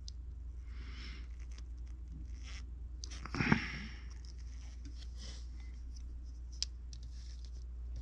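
Faint scraping and rustling as a metal sculpting tool works a small clay rifle model on paper, with one louder rustle about three and a half seconds in and a single click later on. A steady low hum runs underneath.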